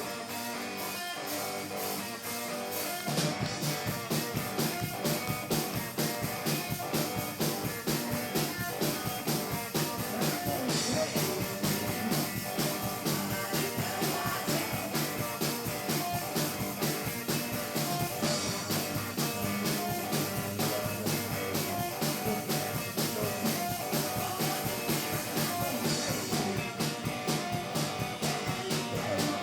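Electric hill-country blues band playing: a guitar starts alone, and a driving drum beat comes in about three seconds in.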